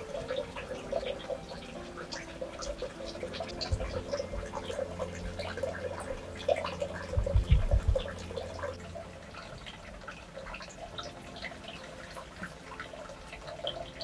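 Water dripping and pattering in scattered irregular drops, with a brief low rumble about seven seconds in.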